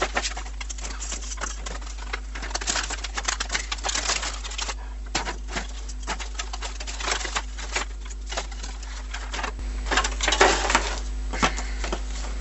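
Packaging being handled and opened by hand: irregular crinkling, rustling and clicking of plastic and cardboard, busiest a couple of seconds before the end.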